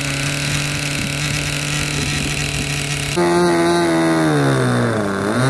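Radio-control model aircraft engines. First a small engine runs steadily for about three seconds; then, after a cut, a higher-pitched model engine sounds, its pitch falling steadily toward the end.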